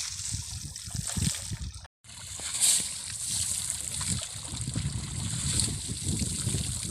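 Water sloshing and splashing as an elephant moves about in a pond, with uneven surges and low thumps; the sound drops out briefly about two seconds in.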